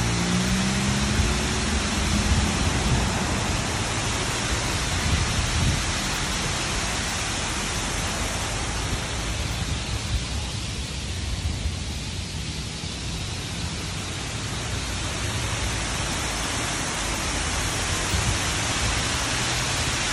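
Rushing water of a large man-made waterfall cascading down a rock wall, a steady, dense hiss that thins for a few seconds midway. A low hum is heard briefly at the start.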